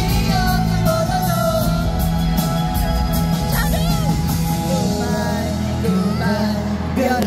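Live pop music: a male vocal group singing into microphones, backed by a band with guitar, heard through an arena's loudspeakers from the audience.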